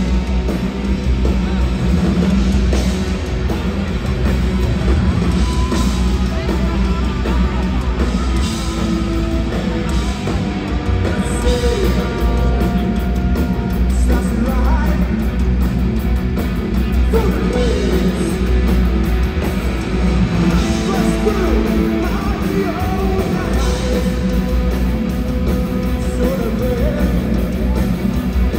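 A punk rock band playing live, with loud, dense electric guitar, bass and drums and a singer's voice over the top, running without a break.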